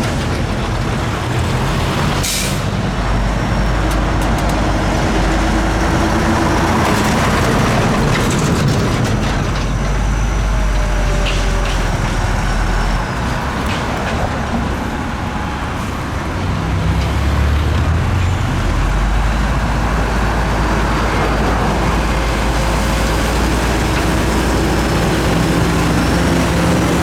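Heavy diesel earthmoving machinery, a bulldozer and dump truck, running loudly, the low engine note rising and falling with load. There is a sharp crack about two seconds in, and a faint high squeal comes and goes.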